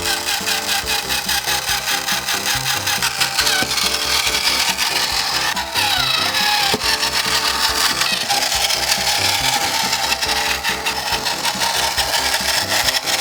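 Battery-powered toy double-decker bus running by itself: its small electric motor and gears make a steady, rasping buzz of rapid ticks.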